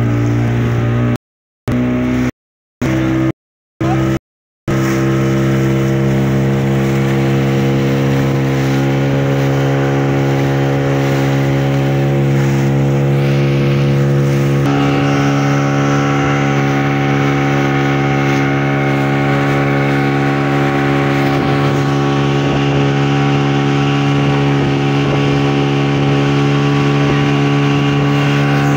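Speedboat's outboard motor running steadily at cruising speed, with water rushing along the hull. The sound cuts out in several brief gaps during the first few seconds, and its pitch steps up slightly about halfway through.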